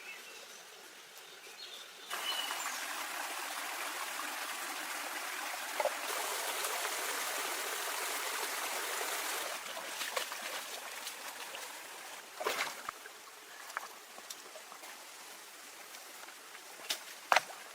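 Flowing stream water, a steady rushing hiss that starts abruptly about two seconds in and fades away over the second half. A few sharp knocks come near the end.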